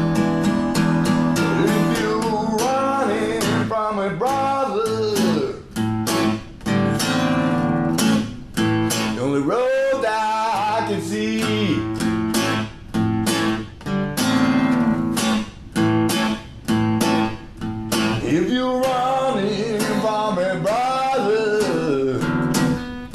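Acoustic blues guitar strumming steady chords, with a bending, wavering melody line over it.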